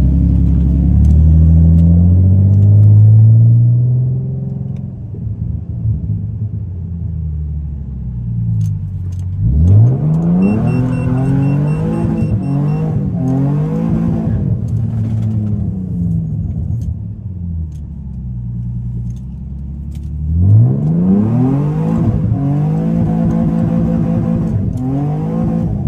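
Nissan 350Z's 3.5-litre V6, heard from inside the cabin, pulling hard through the gears. The engine note climbs as it revs, drops back at each gear change and climbs again. There are sharp rev-ups at the start, about ten seconds in and about twenty seconds in, with steadier, quieter cruising between them.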